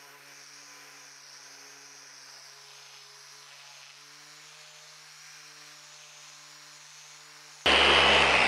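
A faint, steady hum made of a few low tones. Near the end it is cut off by the dual-action polisher starting up loudly, running its foam cutting pad over the car's paint.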